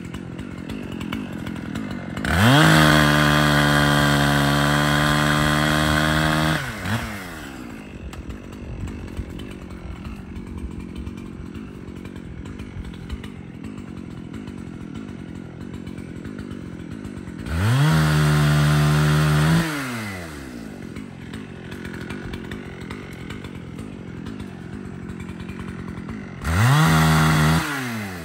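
Two-stroke gasoline chainsaw idling, revved up to full throttle three times: a long burst of about four seconds, then two shorter ones, each rising in pitch, holding, and falling back to idle.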